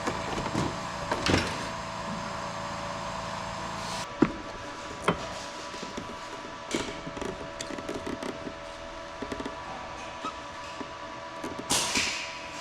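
Scattered clicks and light knocks of metal parts and tools being handled while working on an ATV's brake cable, over a steady background hum. A short rushing noise comes near the end.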